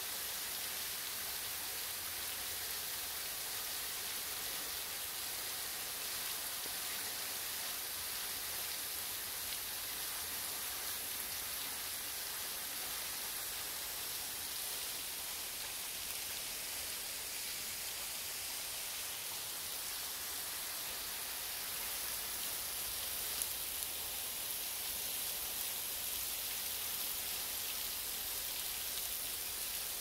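Thin waterfall pouring off a rock bluff and splashing onto boulders below: a steady, even hiss of falling water.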